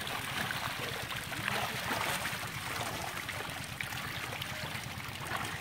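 Water trickling and splashing, a steady noisy wash with small scattered splashes.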